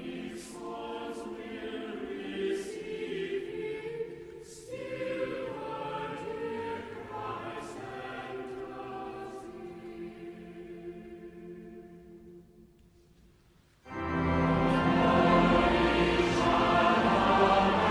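A choir singing in two long phrases that fade away about twelve seconds in. After a brief pause, louder, fuller choral music starts suddenly near the end.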